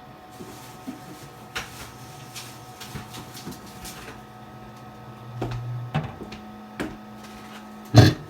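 Microwave oven running with a steady hum, broken by a few sharp clicks and a loud knock near the end.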